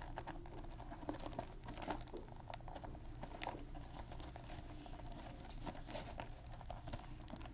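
Gloved hands turning and handling a sealed cardboard box of trading cards: faint, scattered rustles, crinkles and small taps.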